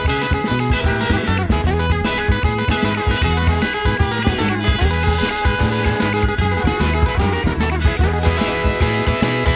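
Live band playing an instrumental jam: guitar leads over steady bass and drums.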